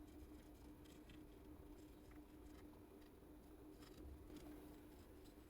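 Near silence: a faint steady hum with a few faint, scattered light ticks.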